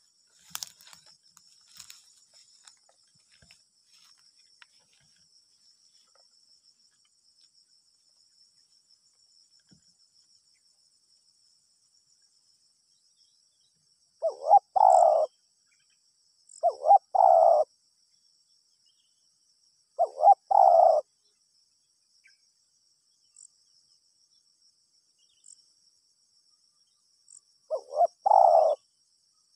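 Spotted dove (tekukur) cooing: four short, low, multi-note coos a few seconds apart, starting about halfway through. A faint, steady, high insect drone continues throughout.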